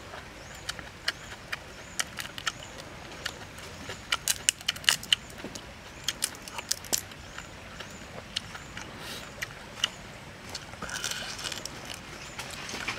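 Grilled shrimp shell being cracked and peeled by hand: sharp scattered clicks and snaps, thickest about four to seven seconds in, then a short crunching rustle about eleven seconds in. A faint high chirp repeats a little more than once a second in the background.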